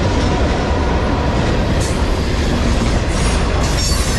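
Freight train cars rolling past: a steady, loud rumble of steel wheels on the rails, with brief high-pitched wheel squeal about three seconds in.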